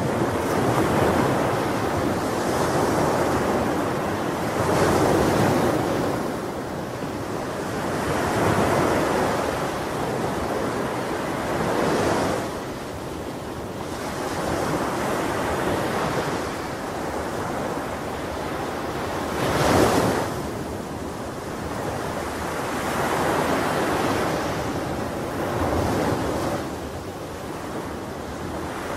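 Ocean surf breaking on a shore, swelling and fading in waves every three to four seconds, the loudest about twenty seconds in.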